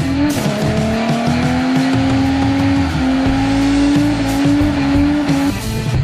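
Car tyres squealing in a long sustained slide with the engine running underneath; the squeal holds one pitch, shifts in small steps, and stops near the end.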